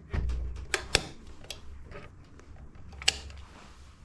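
Sharp plastic clicks and knocks from a fire alarm manual call point being worked with its test key, while the alarm has not yet gone off. There are about five clicks, the clearest about a second in and three seconds in.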